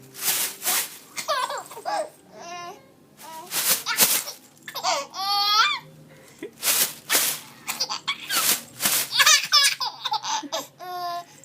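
A baby laughing and squealing in short bursts of giggles, alternating with quick rustling swishes of a plastic bag being shaken in front of the baby.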